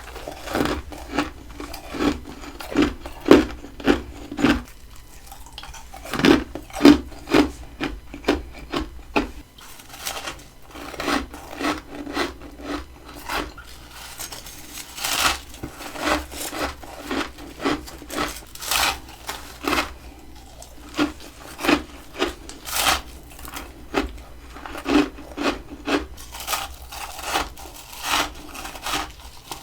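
Freezer frost being bitten and chewed close to the microphone: a run of crisp crunches, about one or two a second.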